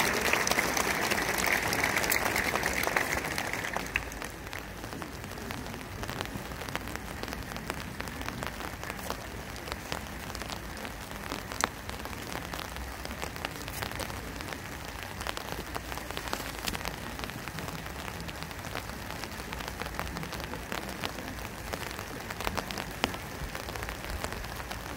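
Crowd applauding, fading out about four seconds in. After that, steady rain pattering on umbrellas, with scattered sharper taps of single drops hitting the umbrella right by the microphone.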